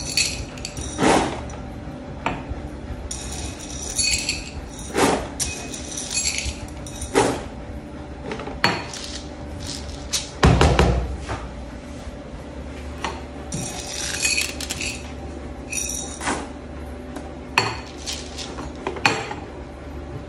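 Green coffee beans scooped with a small metal cup and poured into a plastic measuring container on a scale, rattling in short spells, with clinks and knocks of the cup; a heavier thump about ten seconds in. The container is being filled to weigh the beans for their density.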